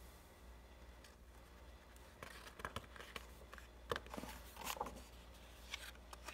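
Faint paper rustles and small ticks as a picture-book page is taken hold of and turned by hand, starting about two seconds in after near silence.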